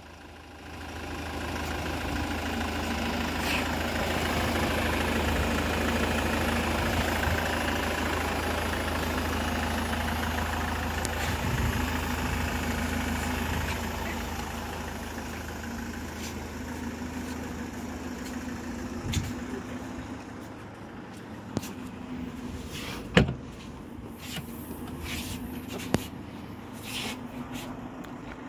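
Ford Kuga 2.0 TDCi four-cylinder diesel engine idling steadily, loudest for the first half and fainter after. A few sharp knocks come in the second half.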